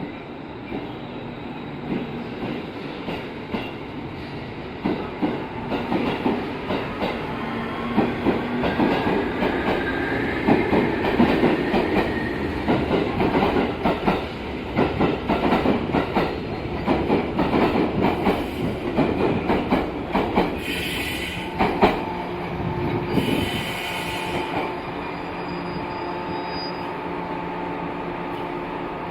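JR 811 series electric train accelerating: its drive gives a rising whine, the jet-like abnormal noise (jet sound?) this set has made since its overhaul, here fairly subdued with weak acceleration. The wheels clatter over rail joints, faster as it picks up speed.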